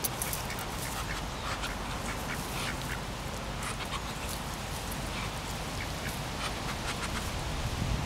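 A flock of Muscovy ducks giving short calls scattered here and there while they forage in grass.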